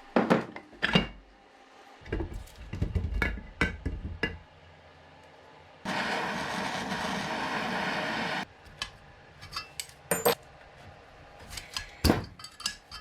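Metal tools and engine parts clinking and knocking in a workshop during an engine teardown, in short snippets that start and stop abruptly. A steady hiss runs for about two and a half seconds in the middle.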